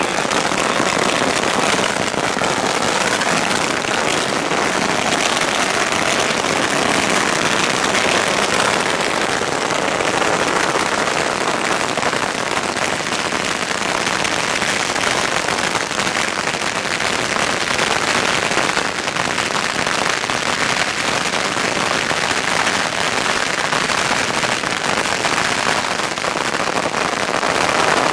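A long string of firecrackers going off in one continuous, dense crackle.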